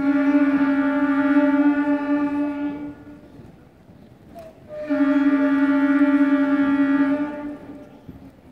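Beginner school concert band of flutes and other wind instruments playing one long note together in unison. They hold it about three seconds, cut off, and play it again about two seconds later.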